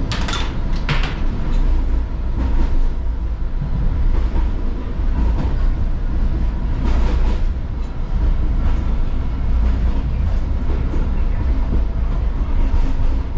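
Light rail car heard from inside while moving: a steady low rumble of wheels on rails, with a faint steady whine. Brief sharp noises stand out near the start and again about seven seconds in.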